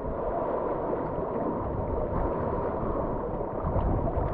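Ocean surf washing and churning against shore rocks, a steady noisy wash with a deep, uneven rumble underneath.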